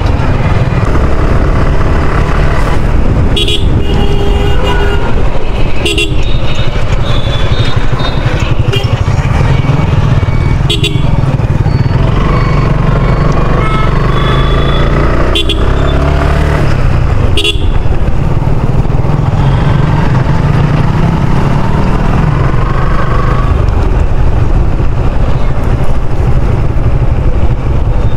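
Suzuki Gixxer's single-cylinder engine running steadily under way, heard from the rider's seat. Horns toot briefly about five times over the engine.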